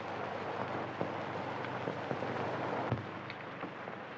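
Steady hiss and scattered crackle of an old 1938 film soundtrack, with a soft low knock about three seconds in.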